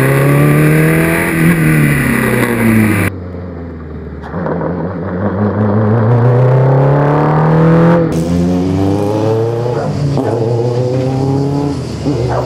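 The 250 hp Renault engine of a Formula 2 single-seater runs hard. Its pitch climbs under acceleration and drops back several times, near 1.5 s, 10 s and 12 s. Between about 3 and 8 seconds in, the sound is duller, as heard through the in-helmet camera.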